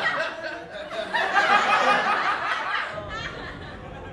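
Laughter after a joke's punchline, loudest from about one to three seconds in, then dying away.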